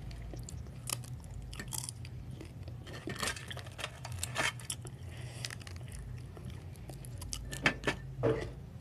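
Close-up eating sounds: a person chewing and smacking on a meal of finger-millet dhido with side dishes, with scattered small clicks and light clinks of dishes. A few louder knocks come near the end.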